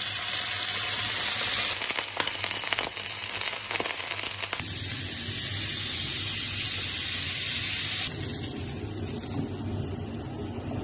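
Beef sizzling as it sears, a steady hiss with dense crackling from about two to four and a half seconds in; the sizzle grows a little quieter about eight seconds in.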